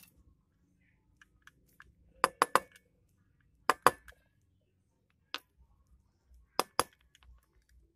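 Small steel parts of a diesel fuel injection pump clinking against each other and a hard surface as they are handled: sharp clinks in quick groups of three, two, one and two.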